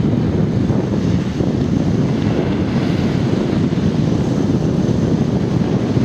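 Strong wind buffeting the microphone: a loud, steady rumble with no distinct events.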